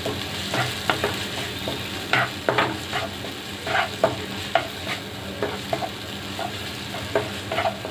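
A spoon or spatula stirring and scraping a thick onion-tomato masala in a hot pan, with the oil sizzling steadily underneath. The scrapes come irregularly, about one or two a second.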